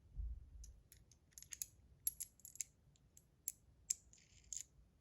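Small stainless steel bar spinner fidget being handled: light, irregular clicks and taps, with a brief scrape near the end.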